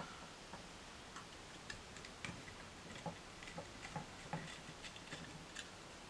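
Faint, irregular small clicks and taps of tiny 2.5 mm screws and brass standoff pillars being handled and fitted to a Raspberry Pi circuit board by hand.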